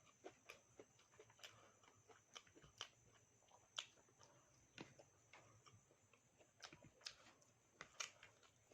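Faint, close-up chewing and mouth sounds of someone eating: irregular small clicks and wet smacks, a few each second.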